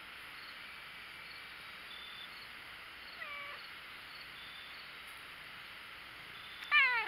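Domestic cat meowing twice close to the microphone: a short, soft meow about three seconds in, then a loud meow near the end, each falling in pitch.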